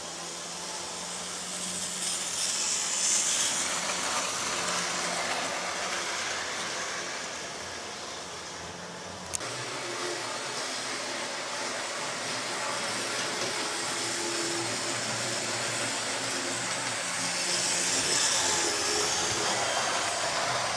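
Model trains running on the layout's track: a steady electric-motor whir with the rattle of wheels on the rails, swelling louder twice as trains pass close by. A single sharp click about nine seconds in.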